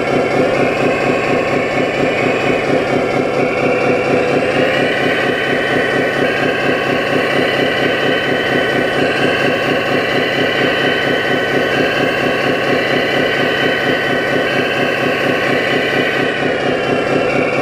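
Electronic sound module in an RC scale construction model playing a diesel engine running steadily. Over it, a higher whine steps up and down in pitch every few seconds.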